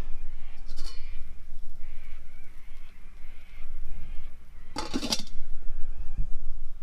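Steady low rumble, with one short, loud honk-like call about five seconds in.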